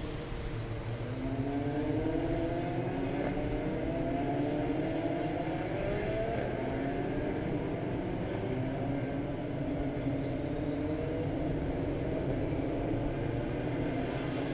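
Formula Renault single-seater race cars accelerating past in a pack, their engines rising in pitch one after another as each car powers out of the corner and shifts up.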